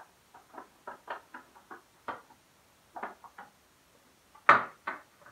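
Fingers picking at and handling the plastic packaging of a small Vaseline lip balm while trying to get it open: irregular small clicks and crinkles, with one louder snap about four and a half seconds in.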